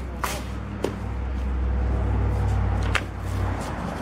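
An engine running with a steady low rumble that swells louder from about a second in and eases off near three seconds, with a few sharp knocks or clanks over it.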